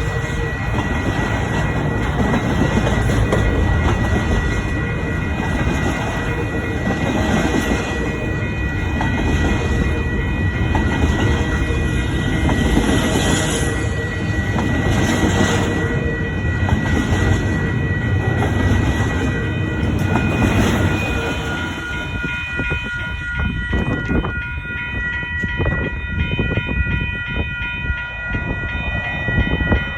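A long intermodal freight train's cars rolling past with a steady rumble and thin ringing tones from the wheels. After about twenty seconds the rumble thins and the rapid clicking of wheels over rail joints stands out.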